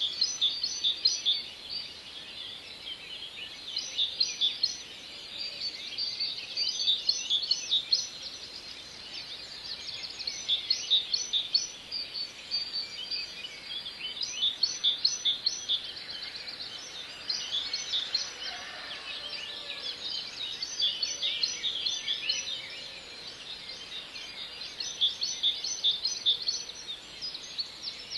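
Rapid high-pitched chirping in bursts of a second or two, recurring every few seconds over a steady outdoor hiss.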